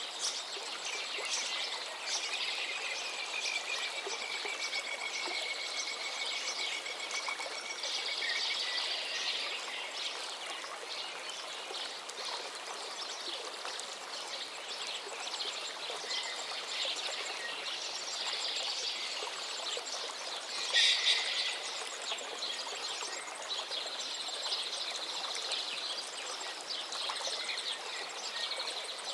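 Songbirds singing and chirping over the steady rush of a flowing stream. A long, thin trill runs for several seconds near the start, and a louder, brief bird call stands out about two-thirds of the way through.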